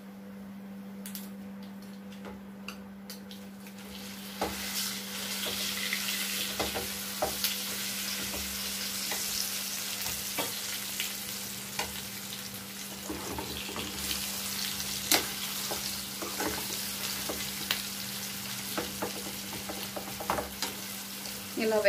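Gongura chutney frying in oil in a kadai, sizzling while a slotted steel spoon stirs and scrapes it, with scattered clinks of the spoon on the pan. The sizzle grows louder about four seconds in. This is the final fry of the pachadi with its tempering of dried red chillies and curry leaves, on a lowered flame.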